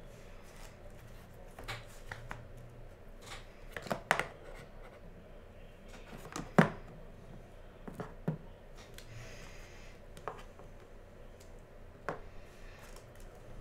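Hard clear plastic card cases clacking and tapping as they are picked up and set down against one another on a shelf. Sharp knocks come every second or two, the loudest about six and a half seconds in.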